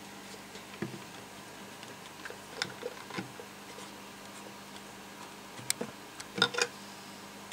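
Scattered light clicks and taps of small items being handled, with a quick cluster of louder clicks near the end, over a faint steady hum.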